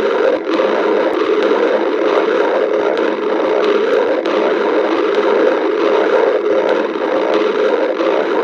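A person's stomach growling, close-miked: a loud, unbroken growl with brief clicks scattered through it.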